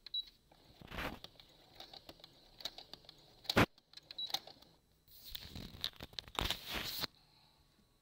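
Irregular clicks and rustling of fabric being handled and guided under a sewing machine's presser foot, with a sharp knock about three and a half seconds in and a louder stretch of rustling near the end.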